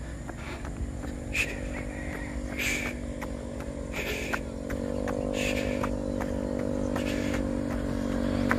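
A motor vehicle's engine running steadily at one pitch, growing louder from about halfway through as it draws nearer. Under it are a jogger's regular footfalls and puffs of breath.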